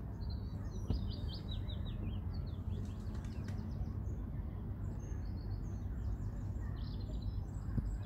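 Small birds chirping and singing, many short high calls in quick runs, over a steady low background rumble.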